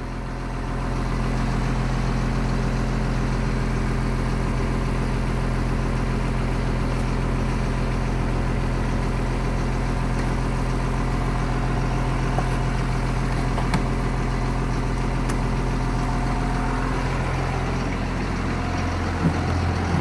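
1996 Blue Bird school bus engine idling steadily, heard from the driver's seat inside the bus. A few faint clicks come around the middle as dash toggle switches are flipped, and the low hum changes in tone near the end.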